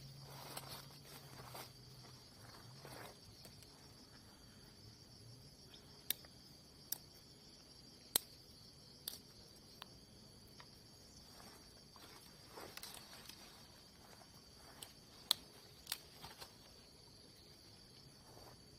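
Steady chirring of insects, crickets or similar, at a faint level, with a handful of sharp clicks or taps scattered through the middle.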